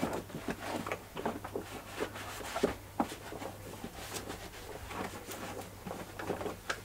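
Microfiber cloth scrubbing over the plastic housing of a Flymo electric lawnmower: a string of short, irregular rubbing and scuffing strokes as stains are worked off.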